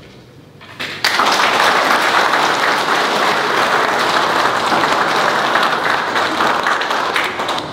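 A large seated audience applauding. It starts abruptly about a second in, holds steady, and eases off near the end.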